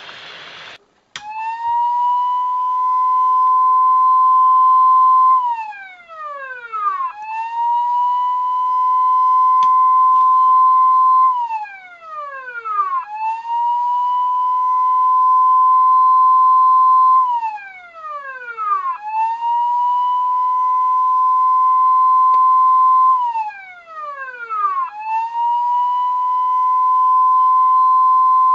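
Industrial works siren sounding repeatedly: each wail rises quickly to a steady high tone, holds for about four seconds, then winds down in pitch, coming back about every six seconds, five times in all.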